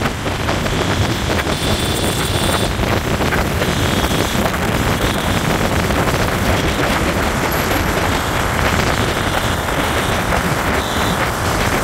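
A motorcycle riding along at speed: steady wind rushing over the microphone, mixed with the bike's engine and road noise.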